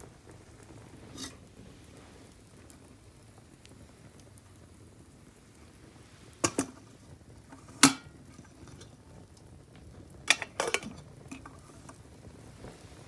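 Fire burning on waste cooking oil, with a low steady crackle and sizzle and a few sharp, loud cracks: a pair, then a single one, then a cluster of two or three.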